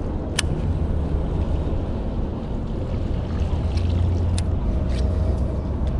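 Steady low rumble of wind on the microphone over the water, with a few sharp clicks.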